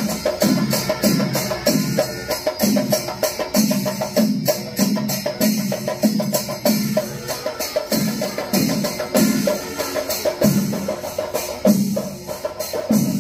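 Temple-procession percussion ensemble playing: drums beating a steady rhythm of about two strokes a second, with sharp hand-cymbal strokes clashing over them.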